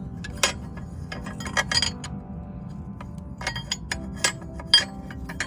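Steel ring spanner clinking against the engine's oil pressure switch as the switch is slowly worked loose: a dozen or so sharp metallic clinks at uneven intervals, over a steady low hum.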